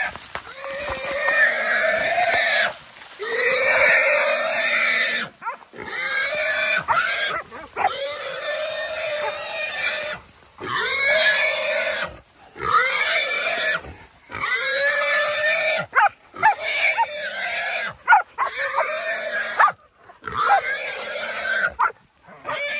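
Feral hog squealing over and over while caught and held by a Dogo Argentino catch dog: a string of shrill squeals, each a second or two long, with short breaks between them.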